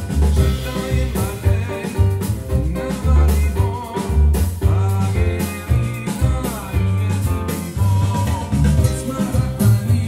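Recorded music with a strong, rhythmic bass line and drums, played in stereo through a Yamaha HTR-5730 AV receiver driving a pair of bookshelf speakers.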